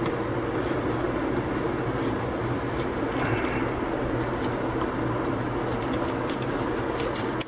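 Steady low hum throughout, with faint crinkles and ticks of a cardboard box and its plastic-wrapped insert being handled and pulled apart.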